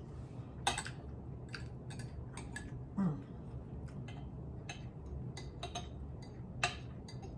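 Cutlery clicking and scraping against a plate while eating: a dozen or so sharp, irregular clicks over a steady low background hum.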